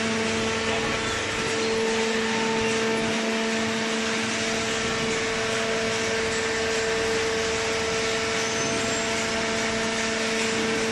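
Hydraulic cardboard baler's electric motor and hydraulic pump running with a steady hum and whine.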